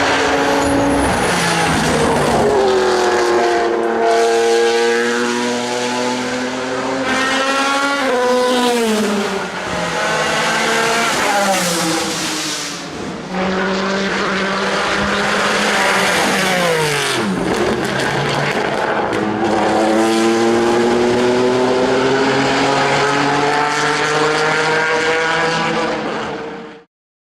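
Pilbeam MP91 LMP2 race car's JPX/Mader V6 engine at racing speed. Its pitch climbs through the gears, then falls steeply on the downshifts, several times over. The sound cuts off abruptly near the end.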